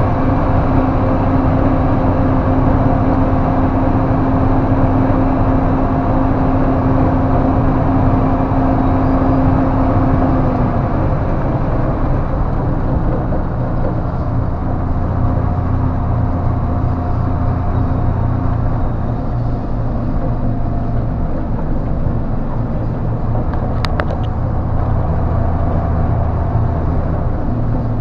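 Cab sound of a 1991 BMY M925A2 6x6 military truck's Cummins inline-six turbo diesel pulling steadily uphill, a low drone with a whine over it. The whine stops about ten seconds in, and a few seconds later the engine note settles lower and heavier. There is a single brief click about four seconds before the end.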